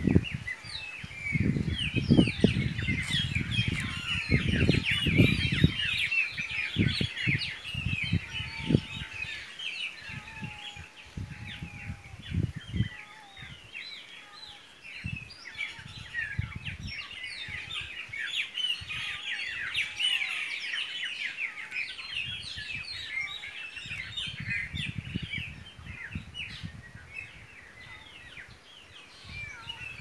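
A chorus of many small birds chirping and twittering at once, their calls overlapping thickly. Low rumbling thumps sound through the first several seconds and again near the end.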